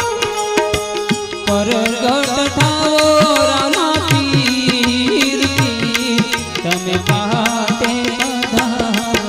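Instrumental interlude of a Gujarati devotional bhajan: harmonium-style held notes and a melody line that bends in pitch, over a steady hand-drum rhythm whose low strokes drop in pitch.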